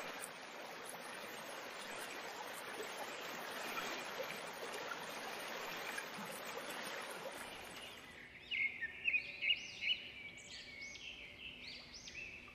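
Steady flowing-water ambience for about the first eight seconds, then birds chirping in quick, short rising and falling calls.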